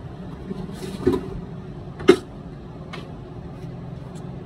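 A steady low rumble of kitchen background noise, with three short sharp clicks about a second apart, the loudest about two seconds in.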